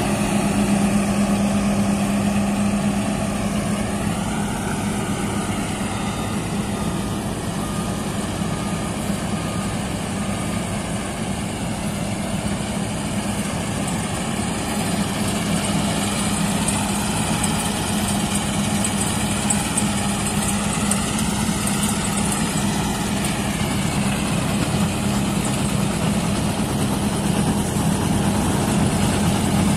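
New Holland TC5070 combine harvester running steadily while cutting alfalfa with its grain header: engine and threshing machinery with a constant low hum. It is a little fainter in the middle and louder again near the end as the machine comes closer.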